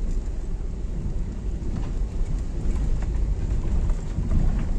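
Car driving, a steady low rumble of engine and road noise with a few faint knocks.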